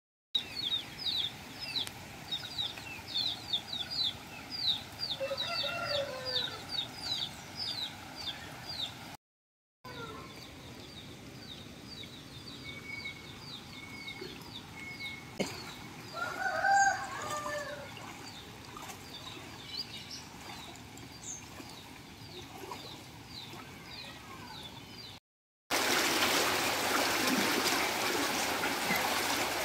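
A rooster crowing twice, about five seconds in and again louder around sixteen seconds, over rapid high-pitched chirping repeated several times a second. After a cut near the end the sound becomes a steady rush of muddy floodwater flowing down a narrow lane.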